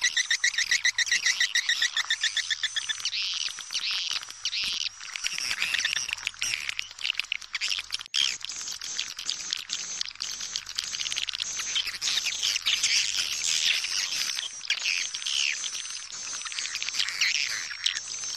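Swiftlet lure call: dense, high-pitched twittering and chirping of edible-nest swiftlets, with a fast buzzing trill in the first three seconds. It is the kind of call recording played from swiftlet houses to draw the birds in to roost and nest.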